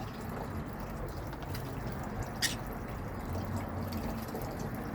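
Water dripping and splashing as a pet bird bathes, with a sharp flick of water about two and a half seconds in.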